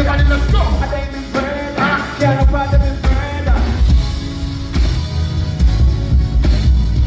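Live band playing loud music with heavy bass and drums, a voice singing over it for about the first half.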